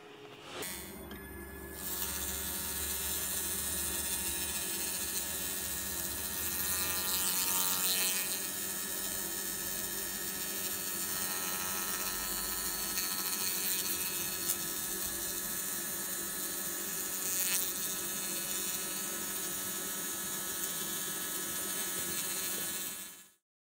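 Hand-held laser cleaning system running steadily with a buzzing hiss and constant hum as it strips heat tint from a weld seam on a metal plate. It cuts off abruptly near the end.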